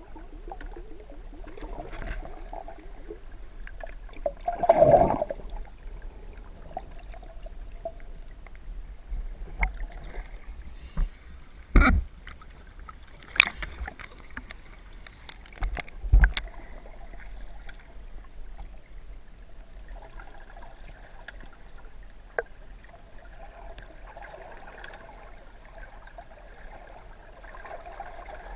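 Water sloshing and gurgling around a camera held at and just below the water's surface, with a few sudden loud splashes between about 5 and 16 seconds in.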